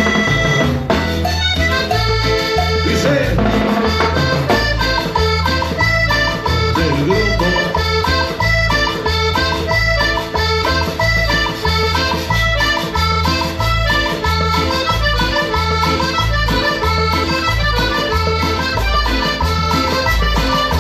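A band playing Latin dance music, with an accordion carrying the melody over a steady, rhythmic bass beat.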